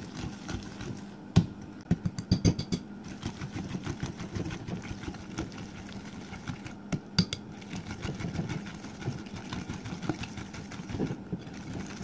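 A utensil scraping and knocking against a glass bowl as ghee and powdered sugar are mashed together, with sharper knocks about a second and a half in, again around two to three seconds in and near seven seconds. A steady low hum runs underneath.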